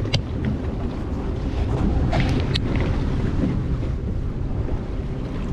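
Wind buffeting the microphone on the open deck of a small fishing boat at sea, over a steady low rumble of boat and water. A few faint clicks come about two seconds in.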